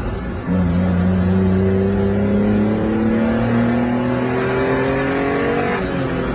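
Honda Beat's 656 cc three-cylinder engine heard from inside the car, accelerating: after a short dip about half a second in, its pitch climbs steadily for about five seconds, then drops near the end.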